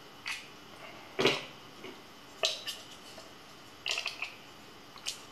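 About half a dozen light clicks and knocks of plastic and circuit board being handled, as an Arduino Uno board is pressed into a 3D-printed plastic holder. The loudest knock comes about a second in.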